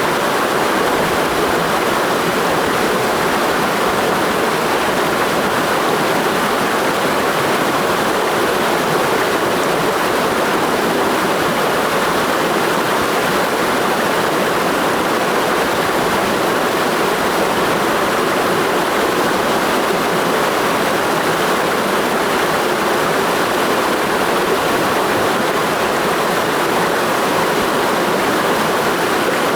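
Mountain stream rushing over rocks: a loud, steady rush of water that does not change.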